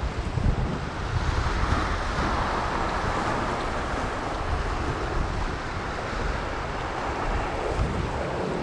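Wind buffeting the microphone over the steady wash of ocean surf around shoreline rocks.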